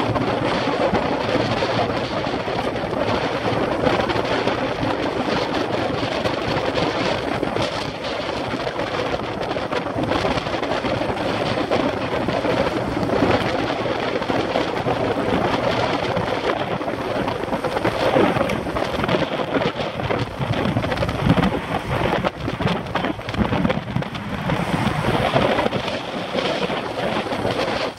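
Heavy wind noise buffeting a bicycle-mounted camera's microphone on a windy day, an uneven rumbling rush that rises and falls, as the bike rides at about 25 mph in a group of cyclists.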